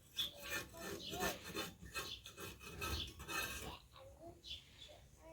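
A run of irregular rubbing and scraping strokes.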